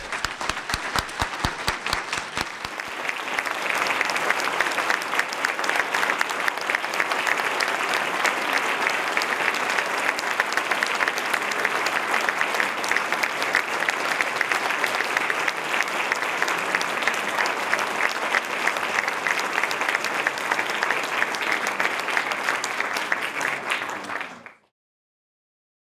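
Audience applauding: clapping builds over the first few seconds to a steady, dense applause, then cuts off suddenly near the end.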